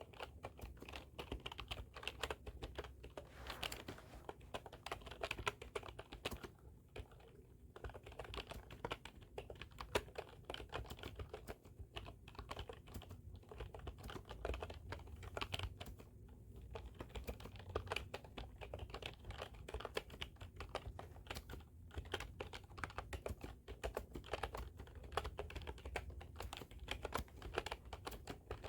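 Typing on a computer keyboard: fast runs of key clicks broken by brief pauses, over a low steady hum.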